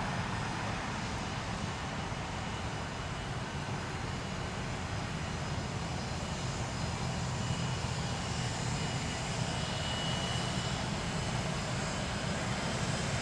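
Pratt & Whitney JT8D turbofan engines of a McDonnell Douglas MD-83 running, a steady low rumble with a faint high whine over it, getting a little louder towards the end.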